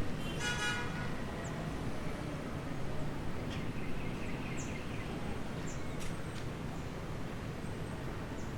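Steady outdoor background rumble, with a brief high horn-like toot near the start and a few short high chirps later on.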